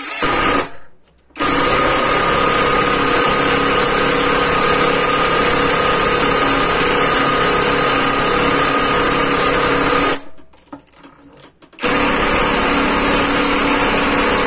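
Topshark 18 V cordless impact wrench driving a long screw into a block of pine, its motor running with the impact mechanism hammering steadily. After a brief trigger pull at the start it runs for about nine seconds, stops, and starts again near the end.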